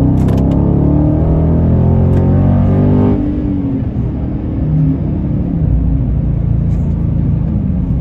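Dodge Scat Pack's 392 (6.4-litre) HEMI V8 heard from inside the cabin, pulling steadily under throttle, then easing off about three seconds in and running on at a steady cruise.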